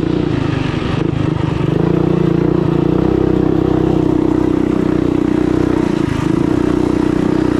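Coleman B200RSV mini bike's small single-cylinder engine running under throttle as it is ridden. The throttle opens up about one and a half seconds in, eases off briefly around six seconds, then picks back up.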